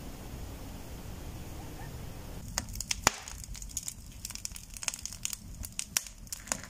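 Wind rumbling on the microphone, then, from about two and a half seconds in, firewood crackling and popping as it burns in the open firebox of a brick stove, in irregular sharp snaps.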